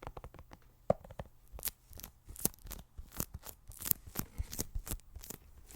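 Packaging being torn open and handled by hand: irregular short crackles and taps, several a second.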